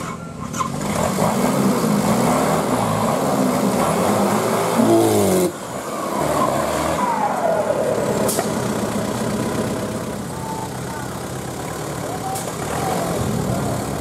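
Off-road 4x4's engine revving in repeated surges under load as it climbs a muddy bank. About five and a half seconds in, the sound drops abruptly, and the engine then runs lower and steadier with a few smaller revs.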